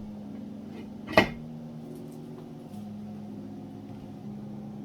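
A steady low hum with softer tones shifting above it, and one sharp knock about a second in, like a utensil or lid striking a pot.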